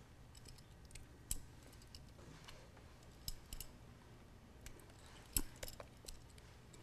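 A spoon tapping and scraping against a mixing bowl and baking pan as dollops of cream cheese mixture are spooned onto brownie batter: faint, scattered clicks, a few in quick succession about five seconds in.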